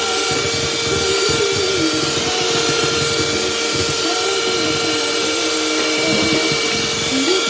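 Electric hand mixer running at speed, its twin beaters whisking a thin, frothy batter in a plastic bowl. The motor gives a steady whine, with a lower tone that wavers slightly as the beaters move through the batter.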